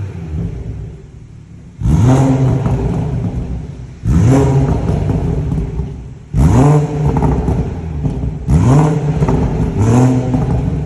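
BMW 440i's B58 turbocharged 3.0-litre inline-six being revved in sharp throttle blips, about every two seconds. Each rev climbs quickly and falls back toward idle before the next.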